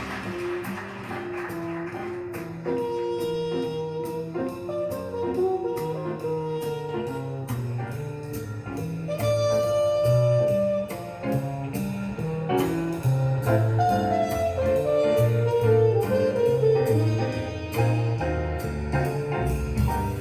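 Recorded jazz played back through a single-ended valve amplifier with Miniwatt EL3N output pentodes: a moving bass line under a melody, with steady cymbal-like ticks.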